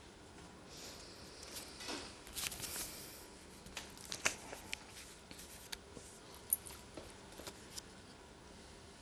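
Sheets of paper rustling as they are handled, with scattered light irregular clicks, in a quiet studio.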